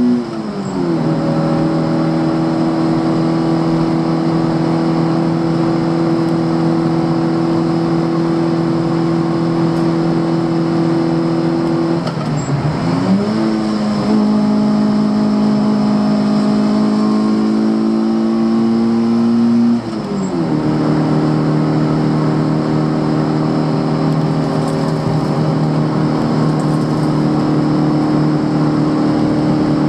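Onboard sound of a Fiat Cinquecento 900's four-cylinder engine pulling hard at steady high revs, pitch held nearly flat for long stretches. It dips and recovers three times, about half a second in, around twelve seconds in and around twenty seconds in, over steady road noise. The engine is held back by a damaged engine controller that caps its speed.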